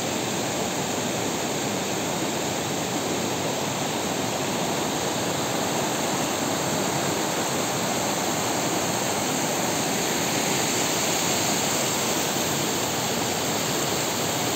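Mountain stream rushing over rocks: a steady, full rush of water.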